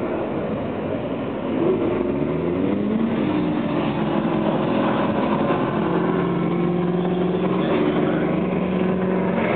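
Rotax two-stroke kart engine revving through an autocross course, its pitch climbing and dropping with the throttle, then held steadier in the last few seconds.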